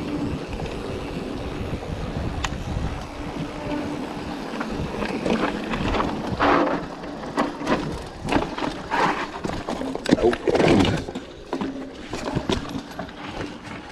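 Mountain bike rolling through a rocky creek crossing: a run of knocks and clatters from the wheels and frame on rock, thickest in the second half, over a steady low wind rumble.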